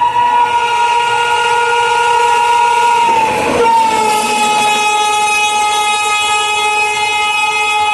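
WAP7 electric locomotive running light with its horn sounding continuously. About three and a half seconds in, the locomotive passes close by and the horn's pitch drops (Doppler shift), with a brief rush of wheel and passing noise.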